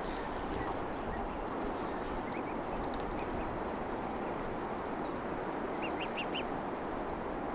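Greylag goslings peeping: a few faint high calls about two to three seconds in, then a quick run of four short rising peeps about six seconds in, over steady background noise.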